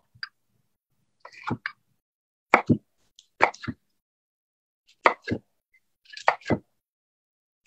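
Chef's knife slicing through a cooked chicken breast and knocking on a wooden cutting board. There are about nine sharp knocks, mostly in pairs, coming roughly once a second as each slice goes through to the board.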